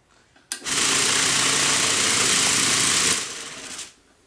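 Vibratory tumbler switched on about half a second in: a steady motor hum under a loud hissing rattle of the media churning in the bowl. It is switched off after about three seconds and winds down over the next half second or so.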